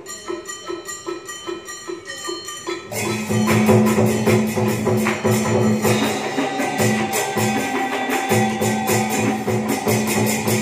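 Live traditional Vietnamese water-puppet orchestra playing. Light rhythmic tapping with a few pitched notes gives way, about three seconds in, to the full ensemble coming in louder with drums and a repeating low pattern.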